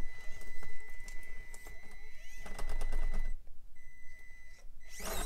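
A TRX4M micro crawler's PN Racing 63-turn 180 brushed motor and crawler gears give a thin steady whine as the truck climbs, with tyres clicking and scrabbling on the rock steps. The whine breaks off a little past three seconds in, returns briefly and stops, and there is a louder burst near the end.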